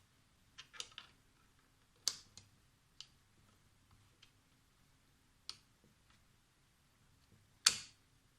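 Sharp metal clicks and taps as interchangeable dies are handled and fitted into a Haupa X-Crimp hand crimping tool. There are about eight irregular clicks, and the loudest comes near the end.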